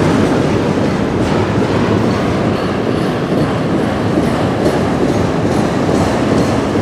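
Autorack cars of a slow-moving CN freight train rolling past: a steady rumble of steel wheels on rail, with occasional faint clicks.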